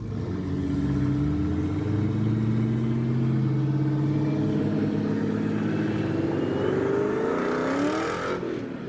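A car's engine and road noise heard from inside the cabin while driving, the engine note holding steady and then rising in pitch near the end as the car speeds up.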